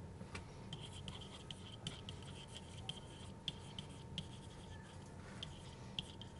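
Faint scratching and irregular light ticks of a stylus writing on a tablet surface, a stroke or two a second, over a low steady hum.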